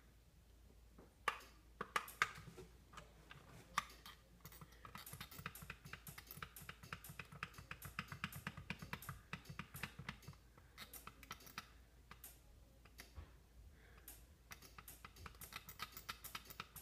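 Faint clicking and tapping: a few separate sharp clicks at first, then from about four seconds in a quick run of light clicks, several a second, like typing.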